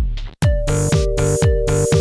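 Electronic background music with a steady kick drum about twice a second; about half a second in, the rest of the track comes in with high percussion and long held synth notes.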